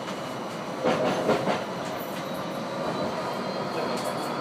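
G:Link light-rail tram running along its track, heard from the driver's cab: a steady rumble of wheels on rail, with a few sharp knocks and clicks about a second in.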